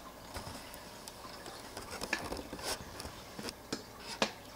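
Handling noise: a scattered handful of light, irregular clicks and taps over a faint steady hiss.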